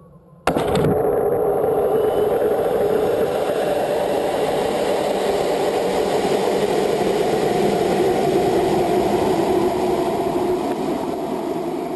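A loud, steady engine roar that starts suddenly about half a second in and eases off slightly near the end.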